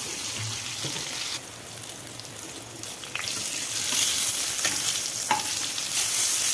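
Slices of pointed gourd sizzling in hot mustard oil in a wok, with a steel ladle clicking and scraping against the pan a few times as they are turned. The sizzling dips for a moment and is louder in the second half.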